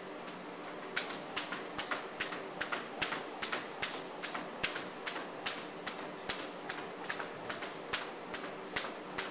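Skipping rope slapping a wooden floor with each jump, a steady rhythm of sharp slaps about two and a half a second, starting about a second in.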